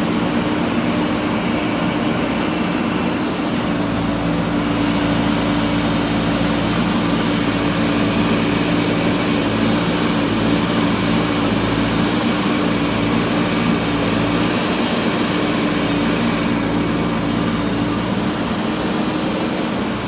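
JCB 3DX backhoe loader's diesel engine running steadily while digging, a constant mechanical hum whose low end shifts about four seconds in and again about fifteen seconds in.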